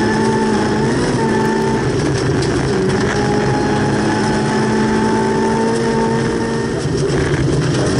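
Volvo 240 rally car's engine running hard at high revs, heard from inside the cabin, with tyre and gravel noise from the loose road surface. The engine note dips briefly about seven seconds in.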